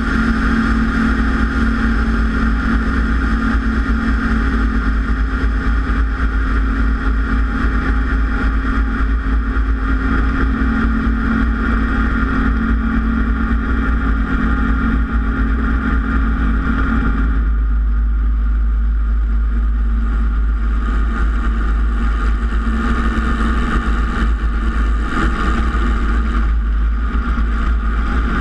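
Robinson R22 helicopter's piston engine and main rotor running steadily in low flight close to the ground, heard from outside the cabin. About two-thirds of the way through, the higher part of the sound drops away for a few seconds, then comes back.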